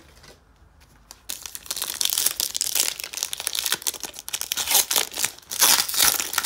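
Foil wrapper of a 2018 Donruss Optic football card pack crinkling and tearing as it is opened by hand. A dense crackle starts about a second in and is loudest near the end.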